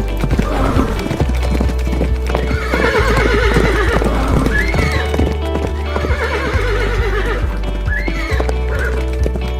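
Horses galloping, with a steady patter of hoofbeats, and two long, wavering neighs, the first about three seconds in and the second about six seconds in, each followed by a short whinny. Background music with a steady bass runs underneath.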